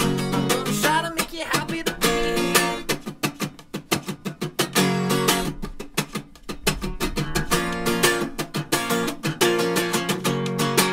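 Acoustic guitar strummed in an instrumental break of a live song, after a sung note trails off about a second in. The strumming thins out and drops in level through the middle before returning to full chords.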